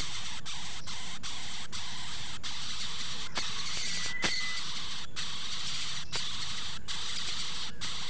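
Coucal nestlings hissing in the nest: a steady hiss broken by short gaps every half second or so, like repeated breaths. A brief faint tone and click come about four seconds in.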